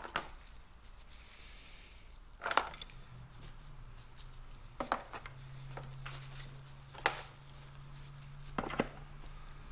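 Steel snap ring pliers being set one at a time into their case: about five separate clacks a couple of seconds apart.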